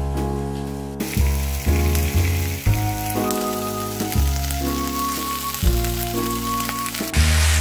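Cabbage pieces sizzling in a frying pan, starting about a second in, under background music.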